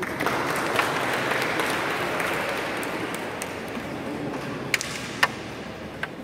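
Spectators clapping, starting suddenly and fading away over about three seconds, followed by three sharp clicks near the end.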